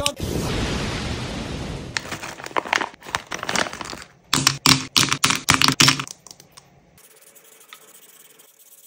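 Close-up handling of plastic toys and marker pens: a plastic bag crinkles, then a quick run of sharp plastic clicks and taps about halfway through, then only faint scratching while a marker is drawn across paper.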